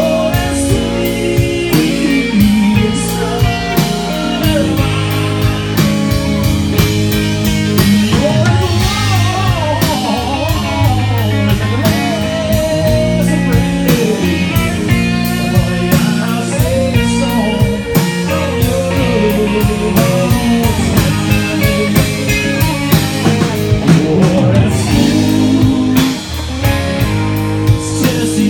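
Live band music in an instrumental break: an electric guitar lead with bent notes over drum kit, bass and rhythm guitar.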